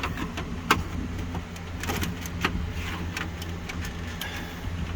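Irregular clicks and knocks of plastic dash trim being pried and worked loose, over a steady low hum.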